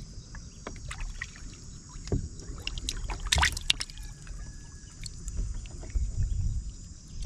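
Water splashing and sloshing in a shallow plastic tub as a hand moves among koi and goldfish and lifts them. The splashes are small and irregular, with a louder cluster about three and a half seconds in.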